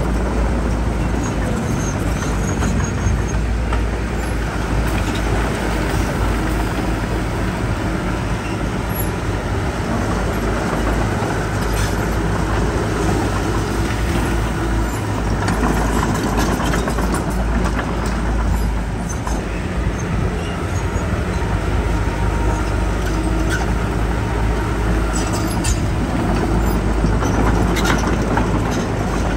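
Heavy diesel earthmoving machinery running steadily: a continuous low engine drone, with a few faint clicks and clanks.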